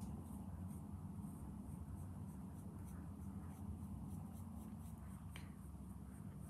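Graphite pencil drawing on a sheet of paper: faint, short scratching strokes as a small circle is sketched, with one clearer stroke near the end. A steady low hum runs underneath.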